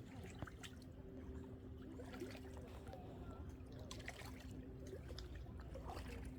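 Faint outdoor ambience: a steady low hum with scattered small clicks and light trickling water.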